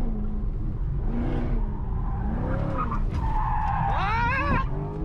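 Car tyres squealing as the car slides through a sharp turn, over a steady low engine rumble, heard from inside the cabin. The squeal wavers at first and grows into a loud rising, warbling squeal about three to four and a half seconds in.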